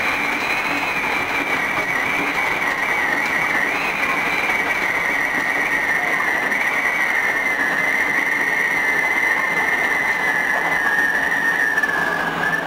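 Osaka Metro 66 series electric train running along the rails, with a high steady whine from its traction motors that slowly falls in pitch as the train slows for the station.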